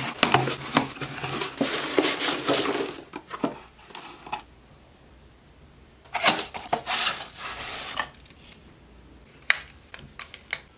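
A cardboard parcel being opened: a box cutter slicing through packing tape with scraping and rustling for about three seconds. After a quiet pause comes a second burst of rustling as a small cardboard model box is handled, then a sharp click and a few small clicks near the end.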